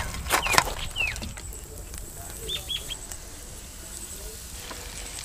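Two sharp clatters as fried chicken drumsticks are tipped from a wire skimmer onto a clay dish, with birds chirping in short falling calls. Hot oil sizzles faintly in the karahi.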